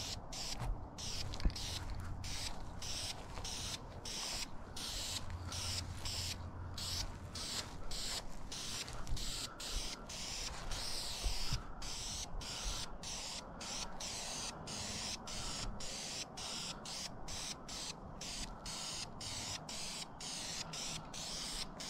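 Aerosol spray paint can hissing in quick short bursts, about two to three a second, laying a light dusting coat of paint.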